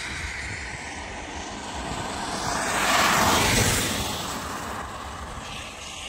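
A road vehicle passing by: a broad rushing noise that swells to a peak about three seconds in and fades away, over a steady low rumble.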